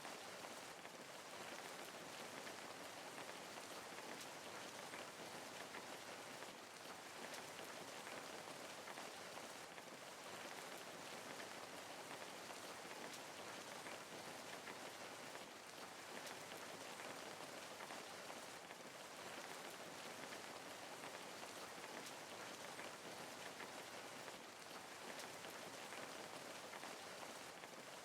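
Steady rain falling, an even hiss of many fine drop ticks on a surface.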